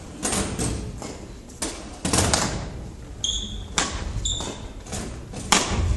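Badminton play on a wooden gym floor: a series of sharp hits and thuds from rackets, shuttlecocks and footfalls, the loudest near the end. Two short high squeaks, typical of court shoes on the floor, come a little past halfway.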